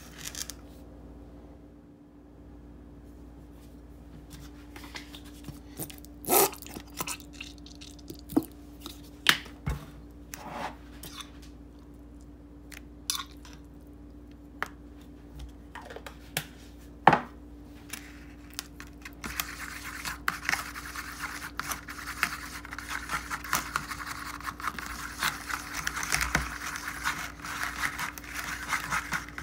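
A spoon scraping and clicking against a glass jar while scooping horseradish, with several sharp clicks. About two-thirds of the way through, a fork starts stirring quickly in a paper bowl: a fast, continuous scratching.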